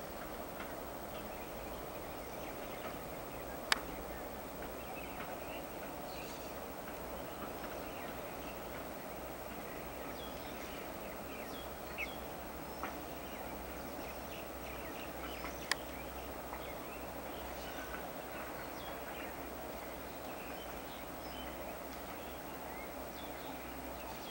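Scattered short bird chirps over a faint steady outdoor background noise, with a few sharp clicks, the loudest about four seconds in and another near sixteen seconds.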